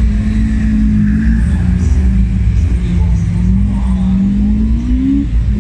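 Race car engine, the nearest an Opel Kadett C coupé, running at low revs with a deep rumble. Its pitch wavers, creeps up over a couple of seconds near the end, then falls suddenly as the throttle is let off.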